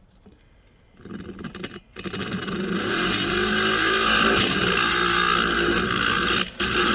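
Rotary grinder with a small round burr starting up about a second in, then running steadily and grinding into the corners of a Husqvarna 266SE chainsaw cylinder's transfer ports. It cuts out briefly near the end.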